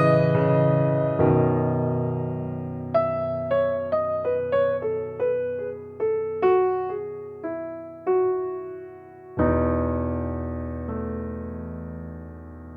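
Background music: a piano playing a slow melody of single notes over sustained chords.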